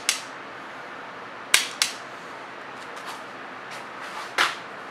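Hand wire strippers cutting and stripping the insulation off motorcycle speaker wires: sharp snaps, one at the start, two close together about a second and a half in, and one near the end, over a steady hiss.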